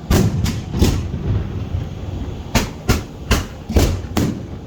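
Fireworks shells bursting in a rapid series of sharp bangs over a low rumble. Three come in the first second, then after a short gap five more follow between about two and a half and four seconds in.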